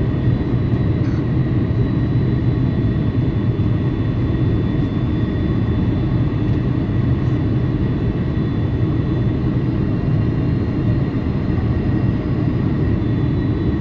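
Boeing 747-400 airliner heard from inside the cabin: a steady engine and airflow rumble with a thin high whine held on top, unchanging throughout.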